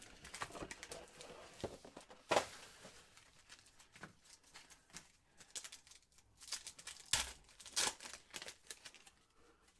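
Trading card packs being torn open and handled: crinkling wrappers, with sharp ripping sounds about two and a half seconds in and twice more between seven and eight seconds in.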